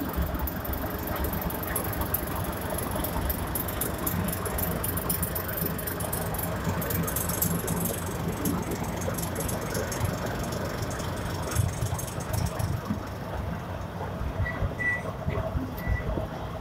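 WDS-6 diesel shunting locomotive running steadily as it slowly hauls a luggage coach along the track. There is dense high metallic clicking and rattling from the wheels and running gear for most of the time, and it fades about three-quarters of the way through.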